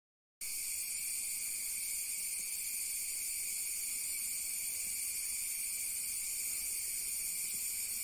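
Steady, dense chorus of rainforest insects such as cicadas and crickets: an unbroken high, hissing drone in several layered pitch bands that does not rise or fall.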